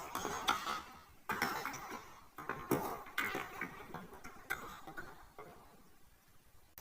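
Hard objects struck one after another, each giving a short, bright metallic-sounding clink that rings briefly; the strikes come irregularly and thin out near the end.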